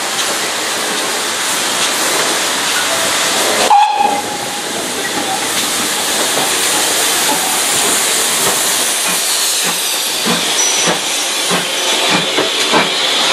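GWR 2884 Class 2-8-0 steam locomotive No. 3802 passing slowly at close range with a continuous loud hiss of escaping steam. From about nine seconds in, regular clanks from its wheels and motion join the hiss, roughly two a second.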